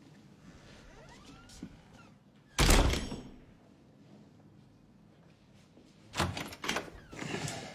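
A door thuds shut hard about two and a half seconds in, then several softer knocks and bumps near the end.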